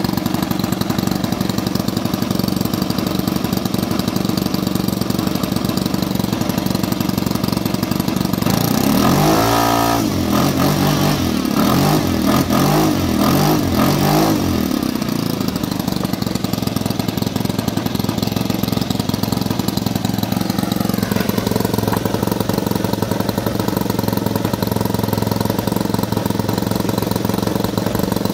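Saito 125GK four-stroke glow model-airplane engine running on the ground, turning a propeller that is too large for it, on 5% nitro fuel. It idles steadily, revs up about nine seconds in and runs faster for about five seconds, then drops back to a steady idle.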